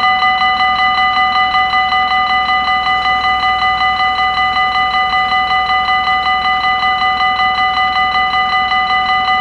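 Dutch level crossing's electronic warning bell ringing rapidly and steadily, an even run of quick metallic-sounding strikes on one fixed chord, while the red lights flash: the warning that a train is approaching and the crossing is closed.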